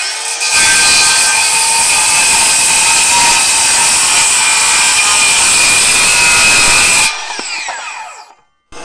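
Ryobi ONE+ HP cordless circular saw crosscutting the end off a wooden scaffold plank: the motor spins up, the blade cuts steadily and loudly for about six and a half seconds, then the trigger is released and the blade winds down with a falling whine.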